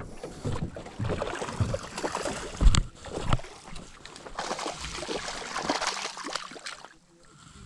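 Irregular splashing and scuffling as a small tigerfish is brought to the bank and landed on light tackle, with a sharp knock about two and a half seconds in; it goes quieter near the end.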